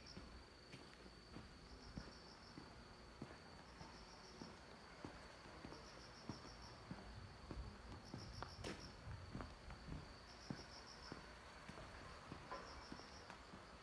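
Night insects calling: a steady high trill, with a short pulsed chirp repeating about every two seconds, over the soft steady rhythm of footsteps walking.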